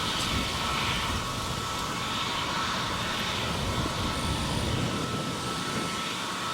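ANA jet airliner's engines at takeoff power: a steady rush of jet noise with a thin, steady whine above it.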